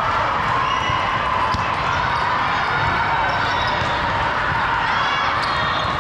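Indoor court game sounds: a ball thudding, short squeaks of shoes on the court, and a steady murmur of spectators.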